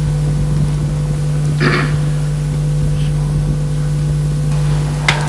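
Steady low electrical hum on an old television recording's soundtrack, with a short hiss about a second and a half in and a sharp click near the end.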